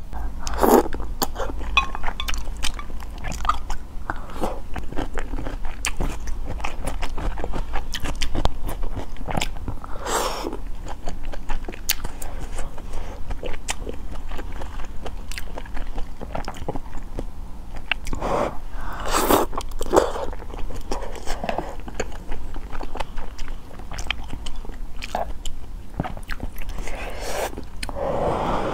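Close-miked eating sounds: wide noodles from a small hot pot slurped in, then chewed with wet mouth clicks. Louder slurps come about a second in, around ten seconds, around nineteen seconds and near the end.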